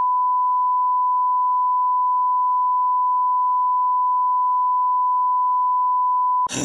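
Censor bleep: one long, steady, high pure beep held for about six and a half seconds, blanking out an outburst of swearing. It cuts off suddenly just before the end.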